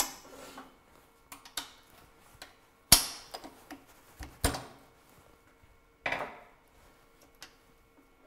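Metal clanks and knocks of a lathe chuck and its parts being loosened and handled. There are several separate sharp strikes, the loudest about three seconds in and others at about four and a half and six seconds, with lighter clicks between.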